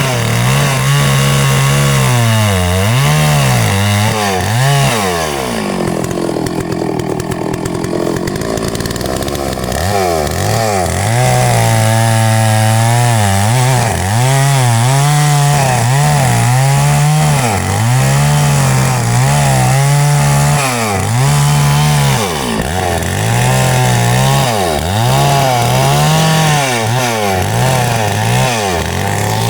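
Two-stroke chainsaw running at high revs and cutting a tree, its pitch dipping and recovering again and again. There is a lower, rougher stretch about six to ten seconds in.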